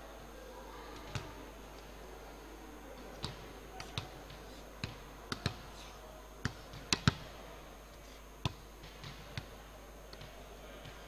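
A dozen or so sharp, irregularly spaced knocks over faint steady background noise, the loudest a close pair about seven seconds in.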